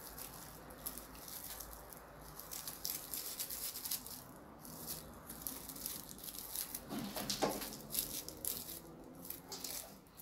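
Dry corn husk crackling and rustling as it is rolled by hand inside a strip of cotton fabric, in many small irregular crackles, a little heavier about seven seconds in.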